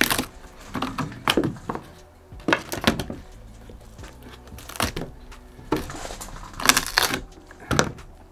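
Rotten plywood being torn off a boat's cabin window frame by hand: a string of sudden cracks and crunches as the soft, decayed wood splits and breaks away.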